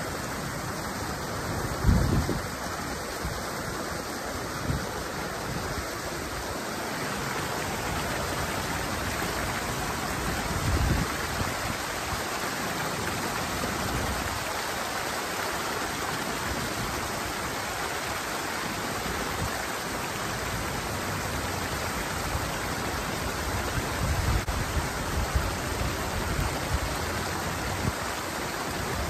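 Water rushing steadily over a small weir cascade in a flowing channel. A few low thumps come through it, the loudest about two seconds in.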